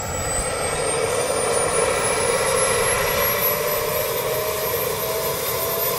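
Leonardo AW189 helicopter's twin turboshaft engines running, a steady turbine rush with a high whine that rises slowly and evenly in pitch as the engines spool up.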